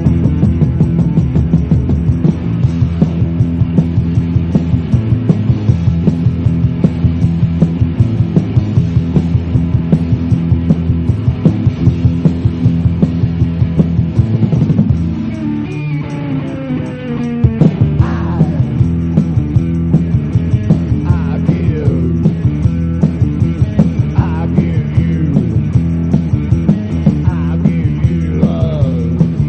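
Rock band playing: electric guitars and bass over a steady drum beat. About halfway through the beat drops out for a second or two under falling, sliding tones, then comes back with gliding, bending notes over it.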